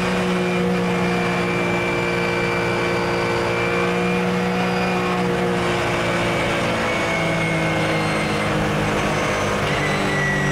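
Porsche 997 GT3 Cup's flat-six racing engine heard from inside the cabin. It holds a steady note for several seconds, then drops in pitch in two steps, about seven seconds in and near the end.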